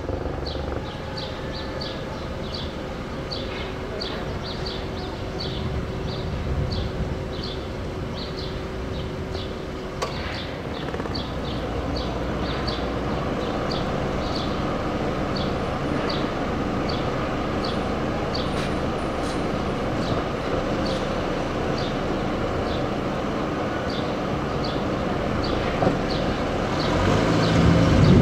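City street traffic running steadily, with a series of short high chirps repeating unevenly a bit more than once a second and a single sharp click about ten seconds in; the traffic grows louder near the end.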